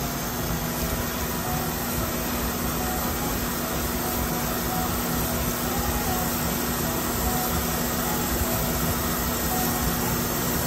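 Storm Vulcan 15AW crankshaft grinder running steadily, its wheel grinding a rod journal of a 454 big-block Chevy crankshaft under coolant spray. An even rushing noise over a constant low hum.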